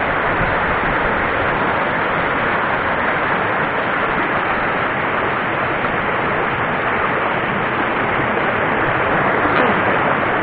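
Whitewater rapids of a mountain stream rushing over boulders: a loud, steady rush of water.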